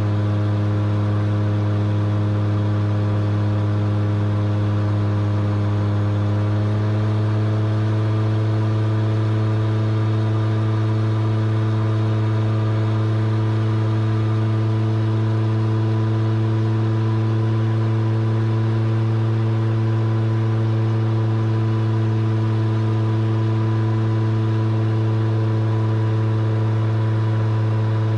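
Single-engine light aircraft's piston engine and propeller droning steadily in cruise, heard from inside the cockpit. The pitch shifts slightly about seven seconds in.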